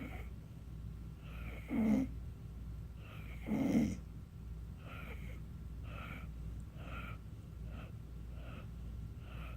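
Snoring while asleep: two loud snores about two and three and a half seconds in, then a run of shorter, fainter breaths.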